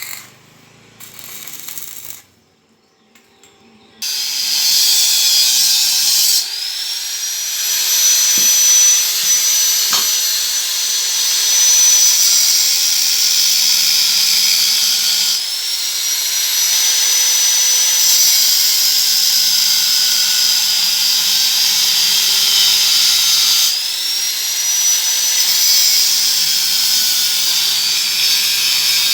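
Homemade circular saw running loudly after starting up about four seconds in, with a steady hiss and a high whine that climbs and settles three times.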